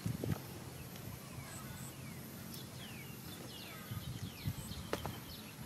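Small birds chirping in the background, many short falling whistles, with a few light knocks and rustles as a baby monkey clambers on a plastic basket.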